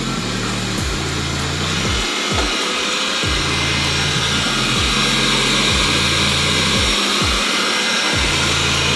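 Xiaomi robot vacuum cleaner running, its suction fan a steady whirring hiss that grows slightly louder, as it starts its cleaning run. Background music with a shifting bass line plays underneath.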